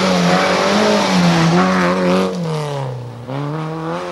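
Rally car passing close at speed on a gravel stage: engine at high revs over a hiss of tyres and gravel. The engine note drops about three seconds in, then rises again.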